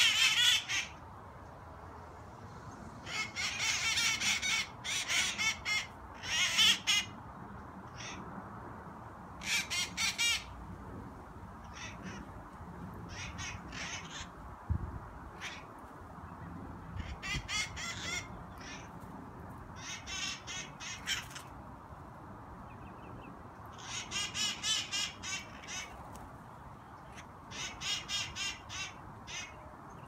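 Parrots squawking in a tree: bursts of rapid, harsh screeching calls a second or two long, repeated every few seconds.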